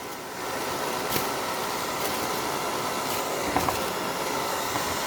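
BERTA 1875 W DC-motor hair dryer running on its low speed setting: a steady rush of blown air.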